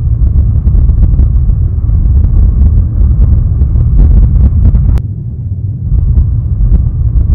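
Strong wind buffeting the microphone, a loud, rumbling roar with no clear pitch, broken by a sudden cut about five seconds in.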